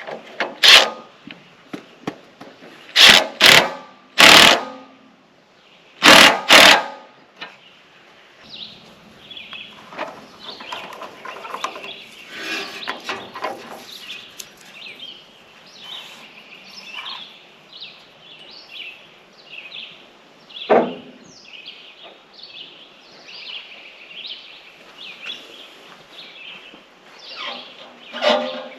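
Six loud, sharp knocks in the first seven seconds, then a small bird chirping over and over, with one more knock about twenty-one seconds in.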